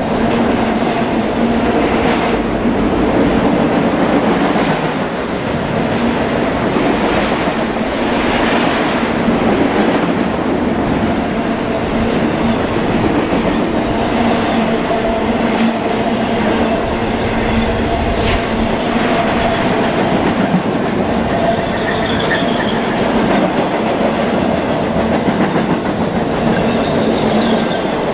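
Intermodal freight train of containers and trailers on well cars rolling past: a continuous rumble with a steady low hum from the wheels and scattered clicks over the rail joints.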